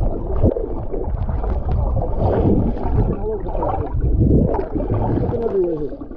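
Muffled rushing and bubbling of water heard by a camera held below the surface, with a deep rumble and wavering muffled tones running through it.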